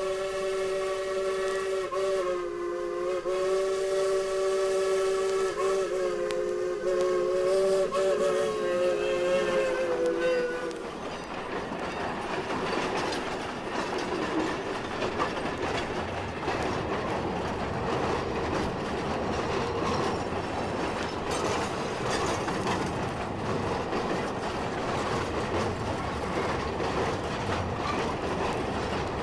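A steam locomotive's whistle blows one long, slightly wavering blast of about ten seconds, several notes sounding together as a chord. After it stops, the train runs on with a steady rumble and the clatter of wheels on the rails.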